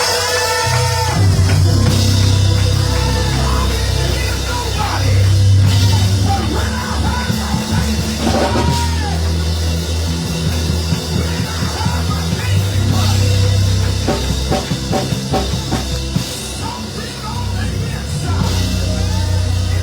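Loud band music with drums and a strong, steady bass line.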